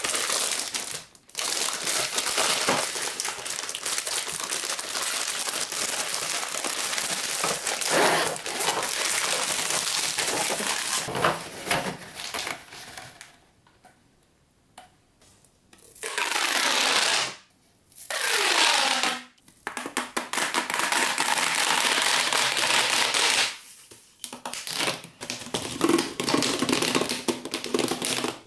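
Plastic packaging crinkling as a pack of Pop Tube toys is handled and opened, then ribbed plastic pop tubes rasping as they are stretched and bent. The sound stops and starts several times, with a few short quiet gaps.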